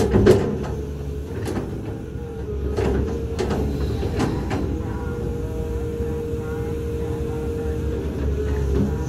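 Caterpillar 320 hydraulic excavator running, its diesel engine rumbling under a steady hydraulic whine as the bucket trims a gravelly soil slope. A handful of sharp knocks and scrapes from the bucket on the stony ground come in the first half.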